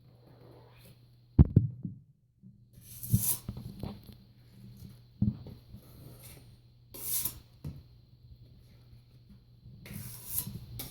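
Steel drywall blade scraping and clacking as joint compound is scooped and worked onto a 10-inch spackle blade, with a sharp knock about a second and a half in, over a low steady hum.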